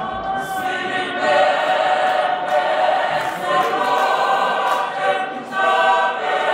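A large group of voices singing a cappella in harmony, holding long notes and moving together from one chord to the next.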